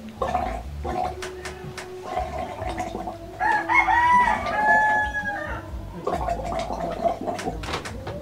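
Breath blown through a bamboo tube into a glass of water, bubbling and gurgling: the bolo bolo healing method. A rooster crows about three and a half seconds in, for about two seconds, louder than the bubbling.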